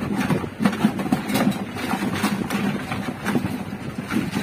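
Toys clattering and scraping inside a cardboard box as small children rummage through it: irregular knocks and clicks, several a second, over a low rumble.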